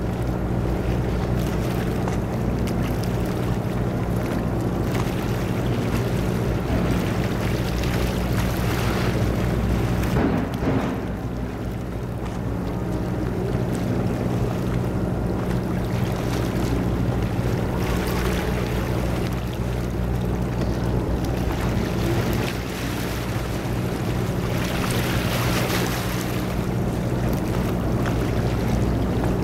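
A steady low mechanical hum, like a running engine, under a hiss that swells and fades a few times.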